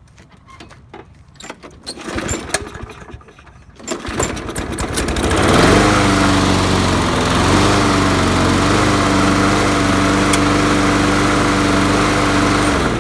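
Briggs & Stratton Quantum single-cylinder lawn mower engine starting about five seconds in, after some clattering and knocks of handling. It runs steadily at a fixed speed, wavers briefly, then is shut off and winds down near the end.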